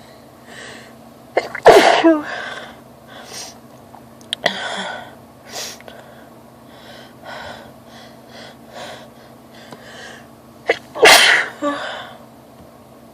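A woman sneezing in an allergy sneezing fit: two loud sneezes about nine seconds apart, with a softer burst about midway between them and quieter breaths and sniffs around them.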